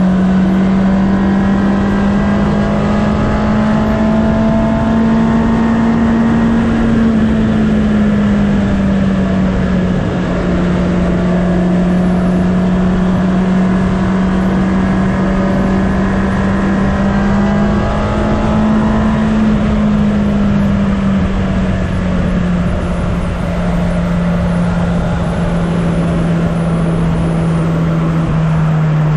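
2019 Honda CB650R's inline-four engine through its stock exhaust, heard from onboard, running at steady cruising revs with wind noise. The engine note rises slightly twice and drops a little near the end.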